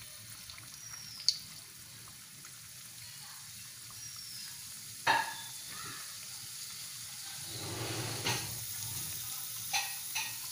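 Dough-wrapped banana roll (pazham niravu) sizzling steadily as it deep-fries in hot oil in a pan. A sharp click comes about a second in, and a few short knocks follow later.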